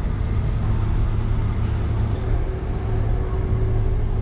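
Steady low rumble of ship engines running, with a faint steady hum over it.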